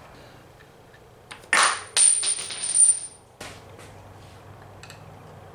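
Small loose steel hardware clattering and ringing against metal for about two seconds, starting about a second and a half in. It goes as a few sharp knocks with a sustained high metallic ring, from the handlebar clamp being taken apart.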